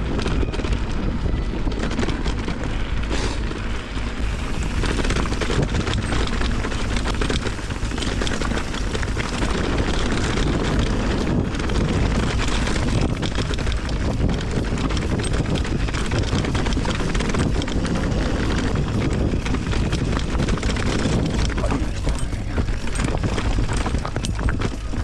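Wind buffeting the microphone with a continuous rattling and clicking of a bicycle riding over a rough track.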